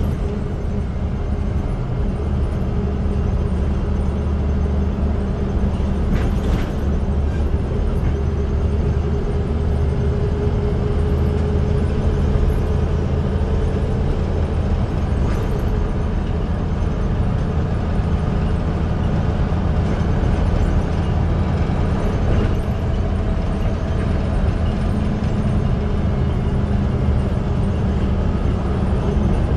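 Karosa B 741 articulated city bus's compressed-natural-gas engine idling steadily while the bus stands still, with a faint whine that fades out about halfway through.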